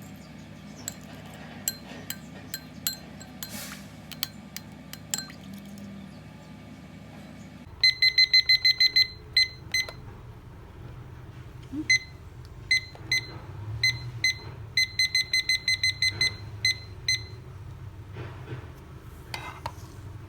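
Light clicks and clinks of kitchen things. Then, from about eight seconds in, a series of short, identical electronic beeps: fast runs of eight to ten and several single beeps, like buttons being pressed on a kitchen appliance's keypad.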